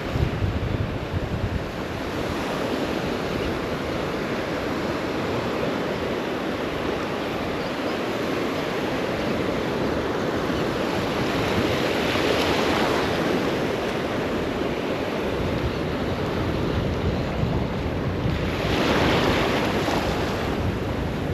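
Ocean surf washing and breaking, with wind buffeting the microphone. Waves swell louder about halfway through and again near the end.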